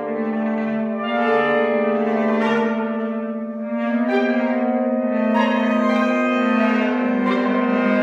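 Saxophone ensemble of soprano, alto, tenor and baritone saxophones playing a soundpainting improvisation: several sustained notes held together in a dense chord, with new notes coming in and the sound growing louder about four seconds in.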